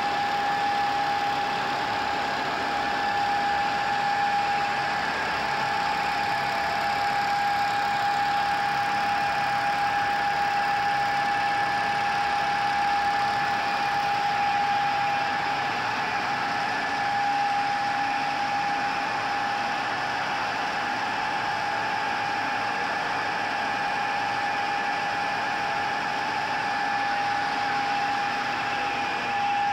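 GIDUE MASTER Combat flexographic label printing press running: a steady mechanical hum with a constant high-pitched whine.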